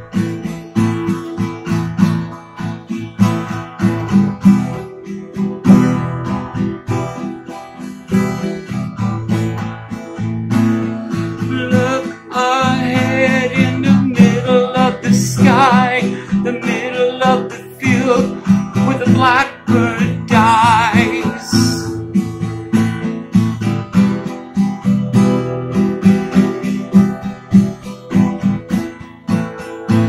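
Acoustic guitar strummed in a steady rhythm, with a man's voice singing a long wavering melody over it for about ten seconds in the middle.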